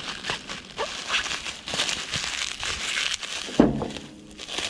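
Bubble wrap and plastic packaging being crinkled and pulled open by gloved hands, a continuous rustling crackle, with a brief vocal sound about three and a half seconds in.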